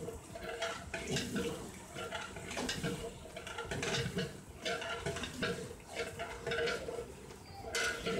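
Long metal ladle stirring and scraping inside a large aluminium cooking pot of liquid, with repeated sharp metal strokes about once or twice a second.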